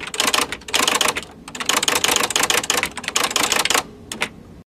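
Typewriter-style typing sound effect: rapid key clicks in quick flurries, with a short break about a second and a half in, and a couple of last clicks near the end before it cuts off suddenly.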